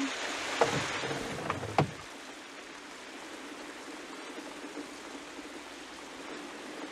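Steady heavy rain falling on a car, heard from inside the cabin. A low rumble with two sharp knocks comes in the first two seconds.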